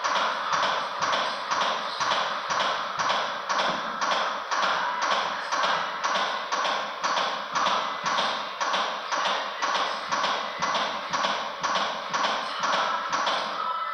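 Chest compressions on a CPR training manikin: a steady rhythm of about two compression strokes a second, the manikin's chest clicking and thudding with each push, stopping near the end as the set of compressions ends. Faint background music runs underneath.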